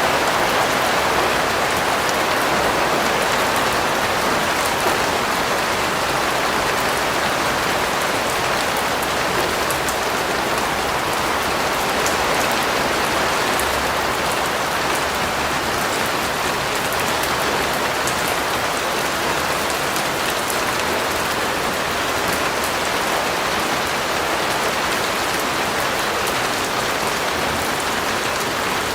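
Steady rain falling and pattering on a surface, an even continuous hiss with fine drop ticks.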